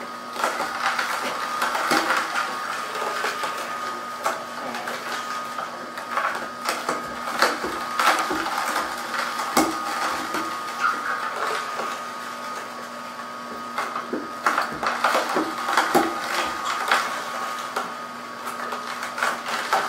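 Horizontal masticating juicer running with a steady motor hum as its auger crushes carrots, with irregular cracks and crunches as the pieces are pressed down the chute.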